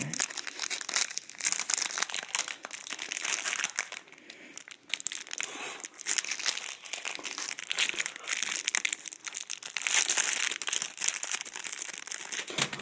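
Clear plastic wrapper of an individually wrapped snack cake crinkling and crackling as hands work at tearing it open; the wrapping is hard to get off. It goes quieter for short spells about four and six seconds in.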